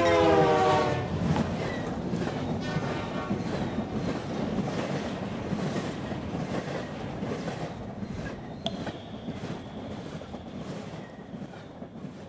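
A train passing: a horn whose pitch slides down at the start, then a rhythmic wheel clatter, about two beats a second, that slowly fades away. A thin high whine joins near the end.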